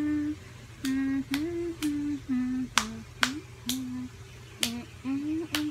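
A woman humming a slow tune in short held notes that step up and down in pitch. Sharp clicks fall among the notes, often where a new note begins.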